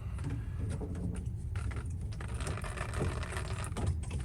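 Small metal clicks and rattles of PEX crimp rings and fittings being handled and fitted onto the pipe, over a steady low hum.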